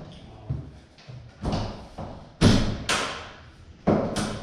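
Jeep Cherokee XJ hood pushed down by hand at its front edge, giving about five or six dull, irregular thumps, the loudest about halfway through.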